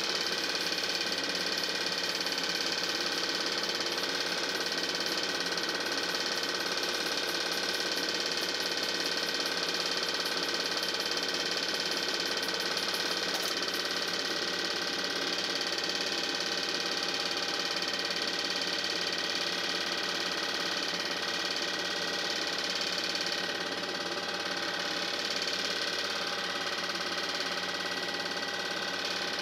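Steady mechanical whir and clatter of a home-movie film projector running, unchanged in level and pitch.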